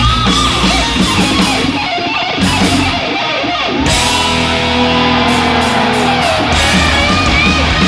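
Live heavy metal band playing, a distorted electric guitar lead bending and sliding over drums and rhythm guitar, with one long held note in the middle.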